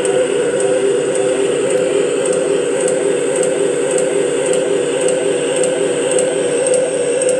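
Mini cassette recorder played through a Line 6 DL4 delay pedal, giving a steady, dense drone of processed tape sound centred in the low mids. A faint regular ticking sounds about three times a second.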